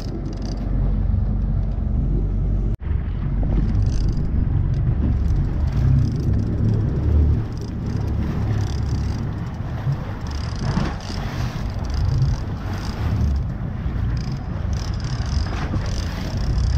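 Low, uneven rumble aboard a fishing boat, broken by a sudden momentary dropout about three seconds in.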